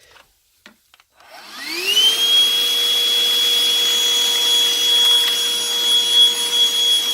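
Black+Decker 20V Max cordless stick vacuum switched on after a few faint clicks: its motor spins up with a rising whine over about half a second, then runs steadily with a high whine over the airflow hiss.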